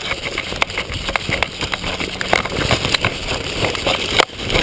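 A player running through dry brush: irregular footfalls, snapping twigs and leaves and branches scraping past the body-worn camera, with some wind on the microphone.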